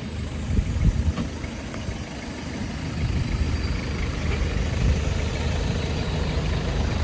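A vehicle engine idling steadily, getting a little louder a couple of seconds in.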